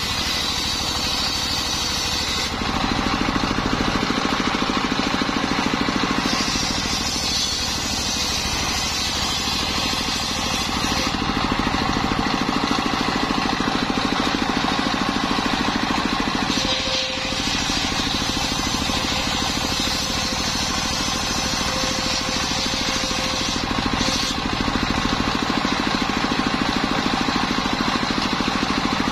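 Stationary diesel engine running steadily, belt-driving a circular saw blade that rips through jackfruit wood. The cutting noise strengthens and eases several times as the slab is fed through the blade.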